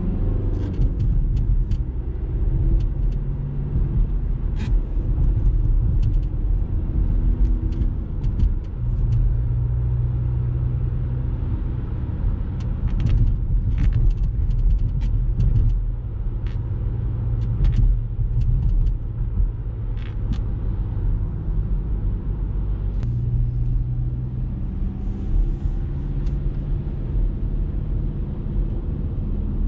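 Skoda Kodiaq's 2.0 TDI diesel engine heard from inside the cabin, running steadily while driving, with tyre and road noise over wet pavement. Scattered short clicks and ticks are heard throughout.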